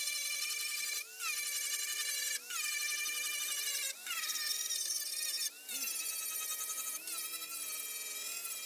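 Power tool motor whining steadily. About every second and a half it briefly drops away, then comes back with a quick rise and fall in pitch, as if lifted off the work and pressed on again.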